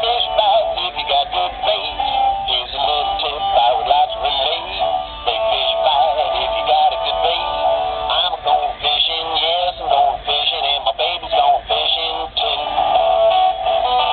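A singing voice over instrumental backing, a blues song that runs without a break.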